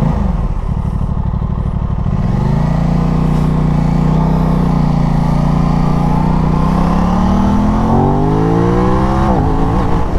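Aprilia RS660 parallel-twin engine pulling uphill under acceleration, its pitch climbing about two seconds in, holding steady, then rising again. Near the end the revs drop sharply.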